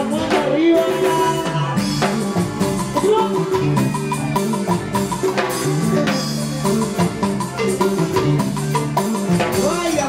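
Live band playing Latin dance music (cumbia), with a steady beat on drums and percussion under sustained melodic tones and a singer's voice.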